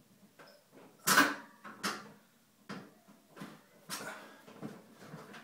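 Stiebel Eltron CK15E wall heater's metal housing being handled against its wall bracket: a sharp clatter about a second in, then a string of lighter knocks and scrapes.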